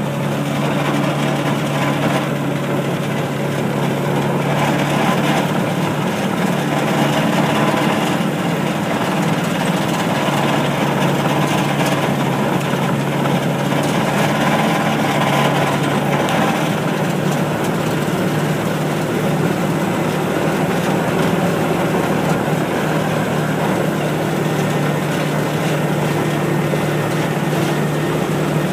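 Small engine of a ride-on farm vehicle running steadily as it drives along, with a constant low hum.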